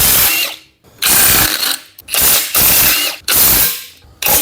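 Ratchet wrench clicking in four quick bursts, undoing exhaust manifold bolts that have been soaked in penetrating lubricant.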